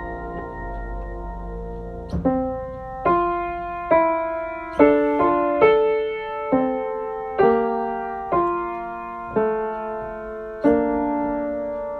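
Solo piano playing a slow postlude. After a held chord fades out, chords are struck about once a second and each is left to ring and die away.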